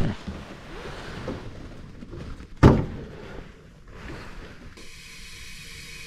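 Faint rustling from hands working inside a furnace cabinet, with one sharp knock about two and a half seconds in. A faint steady hum sets in near the end.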